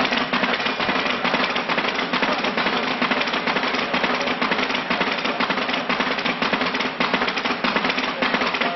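Footsteps of a large crowd walking slowly on paving, many steps overlapping into a dense, steady clatter.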